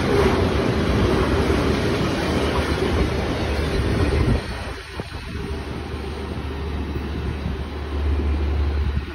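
Freight train of tank cars and a covered hopper car rolling past, steel wheels running on the rails. The noise drops off suddenly about four seconds in as the last car goes by, leaving a fainter low rumble.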